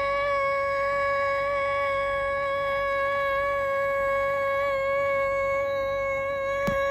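A single pitched tone held steadily on one note with no change in pitch, with a short click about a second before the end.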